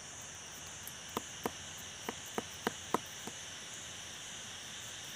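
Insects droning steadily at a high pitch, with a run of about seven sharp clicks, irregularly spaced, between about one and three seconds in.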